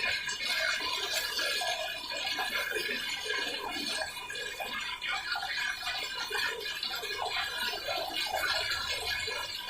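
Public toilet flushing continuously, a steady rush of water that does not shut off: the flush valve is failing to close.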